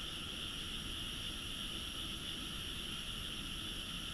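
A dense night chorus of frogs calling from rice paddies, merged into one steady, high-pitched drone with no single call standing out.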